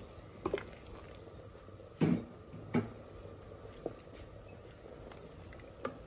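Wooden spoon stirring a steel pot of simmering vegetable and seafood soup with mussels just added: a few soft knocks and wet splashes. The loudest comes about two seconds in.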